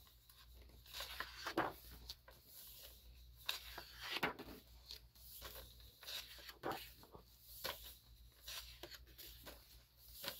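Pages of a photo book being turned by hand: the paper swishes and rustles in short, irregular sweeps, several page turns one after another.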